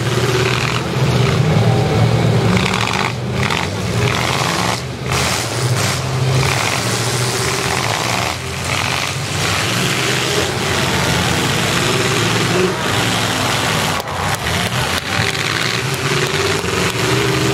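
Several demolition derby cars' engines running loud and revving as the cars shove and ram each other, a dense, continuous engine din.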